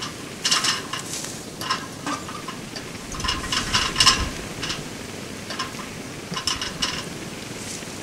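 Irregular clinking, scraping and rustling handling noises, with a heavier knock about four seconds in.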